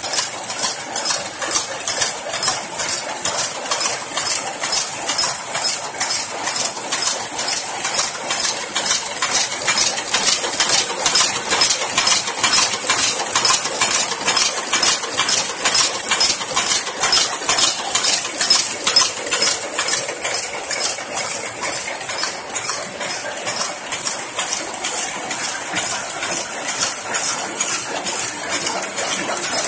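Drywall-screw heading and thread-rolling machines running, a fast, even rhythm of metallic clacking as the screw blanks are struck and rolled, with screws clinking.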